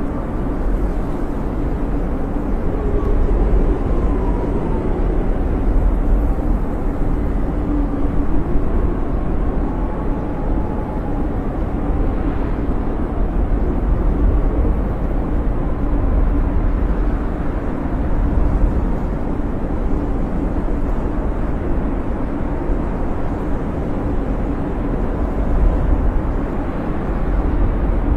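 Blizzard wind howling: a steady low rush with faint whistling tones that waver up and down in pitch.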